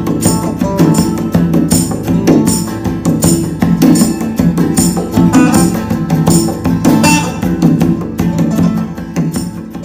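Background music with a steady percussive beat over strummed or plucked strings, fading out near the end.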